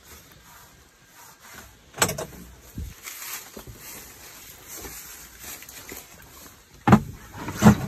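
A few sudden knocks and thumps with faint rustling between them; the two loudest come near the end, under a second apart.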